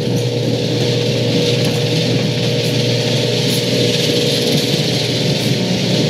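Genie screw-drive garage door opener running and raising the door, freshly greased: a steady motor hum over a continuous low rumble.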